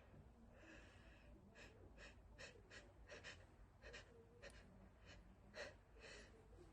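A person's faint, quick catching breaths: about a dozen short gasps and sniffs at uneven spacing, the build-up of a sneeze that is being held back.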